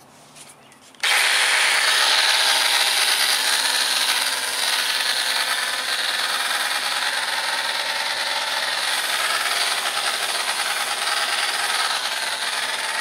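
Hart battery-powered pressurized cleaner spraying on its rinse setting: the motor whirs and water hisses out onto a car body. The spray starts suddenly about a second in and stops near the end.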